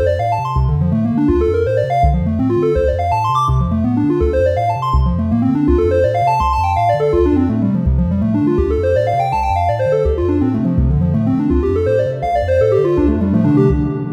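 Background music: a keyboard or piano playing rapid rising and falling runs of notes over a steady low beat.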